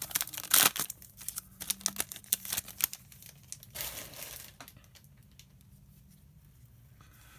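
Foil wrapper of a Topps baseball card pack crinkling as it is opened and the cards are pulled out, with many quick crackling clicks. After about three seconds there is only a brief rustle, and then the cards are handled quietly.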